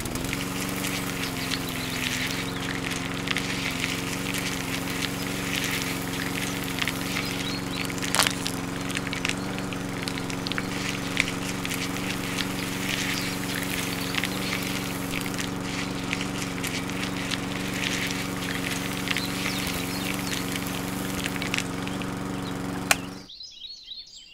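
Small electric motor of a miniature sand-screening machine running steadily, driving a crank that shakes a wire-mesh sieve, with a light rattle of black beans and sand on the mesh. It cuts off suddenly about 23 seconds in, when the machine is switched off.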